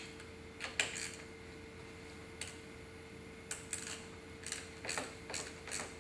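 Small sharp metallic clicks of a wrench working the battery terminal clamp to disconnect the battery, irregular and spaced out, coming more often in the second half. A faint steady hum runs underneath.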